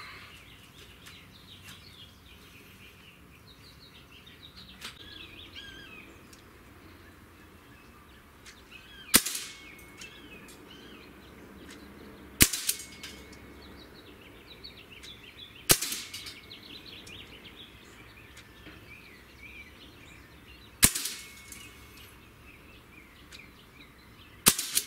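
Sig Sauer MCX Virtus .22 PCP air rifle firing five single shots, each a sharp crack, the first about nine seconds in and the rest some three to five seconds apart. Birds chirp in the background between shots.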